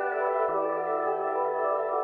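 Soft ambient background music with sustained held tones; the low note drops to a lower pitch about half a second in.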